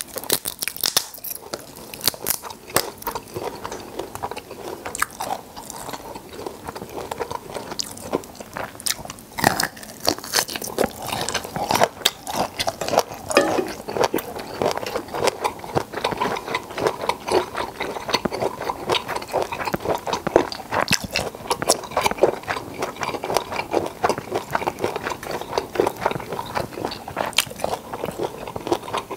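A person chewing and biting into black tiger shrimp close to the microphone: crunching with a dense run of small, irregular clicking mouth sounds.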